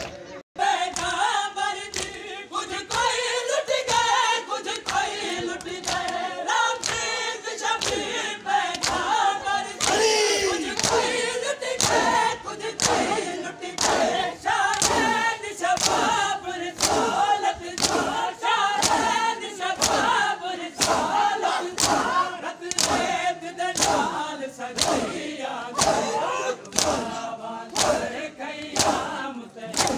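Crowd of men chanting a Muharram noha (mourning lament) together, over a steady beat of open hands slapping bare chests in matam, a little more than one slap a second.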